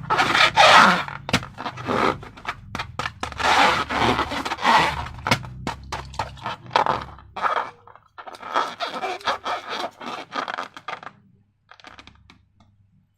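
Crackling, scraping handling noise of slime-making materials being worked, dense with sharp clicks for the first half, then thinning to scattered clicks and dying away about two seconds before the end.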